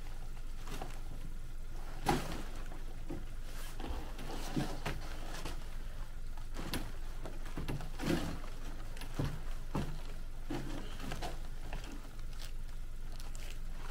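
Irregular knocks, clicks and nylon rustling from a Kazumi X9 tent's pole and skin as the pole end is worked at the tent's corner. The cold-shrunk nylon skin will not stretch far enough for the corner to go on. A steady low rumble runs underneath.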